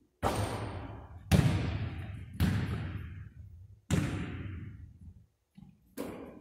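A basketball coming off the hoop and bouncing and being dribbled on a hardwood gym floor: five sharp thuds spaced one to two seconds apart. Each one rings on with a long echo from the large hall.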